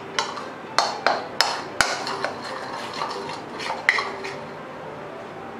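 Metal spoon stirring dry flour and baking powder in a ceramic bowl, knocking and scraping against the bowl's sides in a run of sharp clinks, most of them in the first two seconds and one more about four seconds in.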